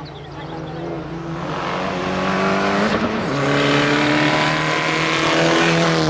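Fiat Egea 1.4 T-Jet rally car's turbocharged four-cylinder engine at full throttle, heard before it comes into view and getting louder as it approaches. The engine note climbs, dips once about halfway through as it shifts up, then climbs again.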